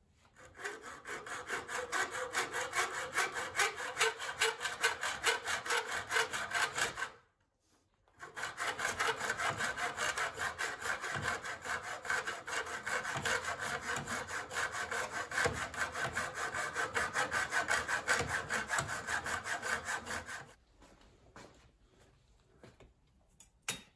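Hacksaw cutting through metal Schluter tile-edge trim held in a plastic miter box, in quick, steady back-and-forth strokes. The sawing breaks off for about a second around seven seconds in, resumes, and stops about twenty seconds in, leaving only a few faint ticks.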